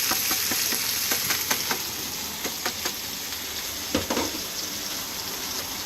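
Crayfish (rock lobster) pieces frying in hot oil in a wok: a steady sizzle with many small crackles and pops. There is a single louder knock about four seconds in.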